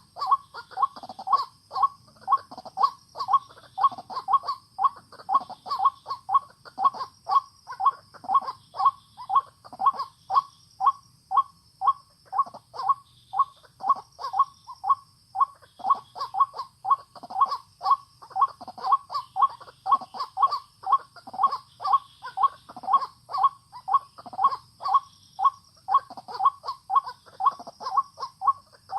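White-breasted waterhen calling, a harsh 'kwak' repeated rapidly and without a break at about three calls a second.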